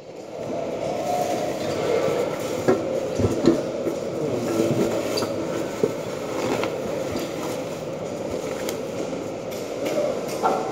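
A cardboard box of bubble-wrapped parts being handled: scattered knocks and rustles over a steady low rumble.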